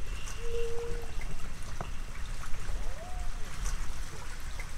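Electroacoustic soundtrack: a steady low rumble under a trickling, water-like noise, with a few brief held tones, a single click and one tone that glides upward about two and a half seconds in.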